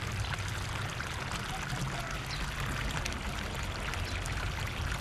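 Water pouring off a rock ledge in thin streams and splashing steadily into a pool.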